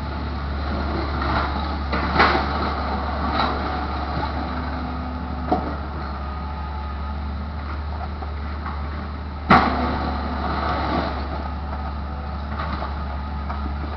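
Steady low engine drone with scattered clanks and knocks, and one sharp loud knock about nine and a half seconds in, heard from inside a car.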